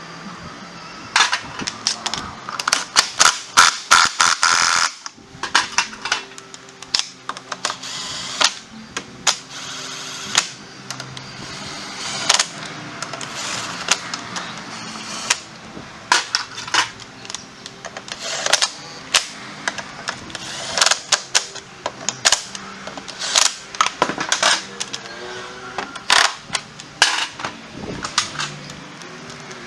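Irregular sharp clicks and knocks of hand tools working on a scooter's rear wheel, coming in quick clusters throughout.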